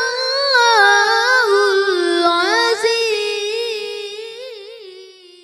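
A boy reciting the Quran in melodic tilawah style. He holds one long drawn-out phrase with wavering ornaments that grows softer toward the end.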